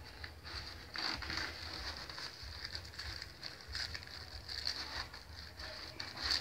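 Rustling and scraping of a cardboard LP record jacket being handled to take the record out, in irregular crackly strokes over a low steady hum.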